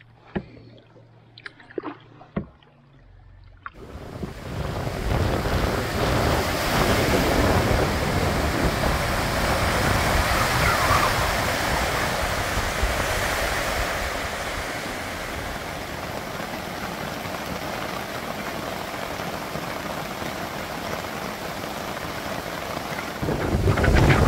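Loud, steady rush of wind and lake waves that starts suddenly about four seconds in, with wind buffeting the microphone. Before that there are only a few faint clicks.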